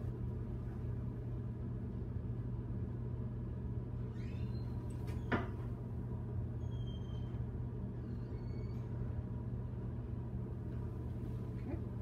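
Steady low machine hum, with a single light knock about five seconds in.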